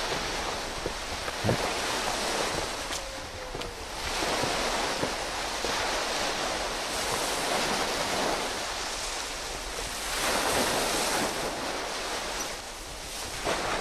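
Sea surf washing in with wind: a steady rushing noise that swells and eases in slow surges, about every few seconds.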